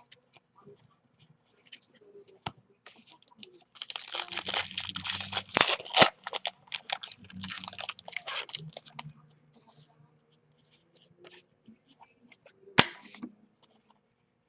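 A trading-card pack wrapper is torn open and crinkled for about five seconds in the middle. Scattered light clicks and ticks come before and after, with one sharper click near the end.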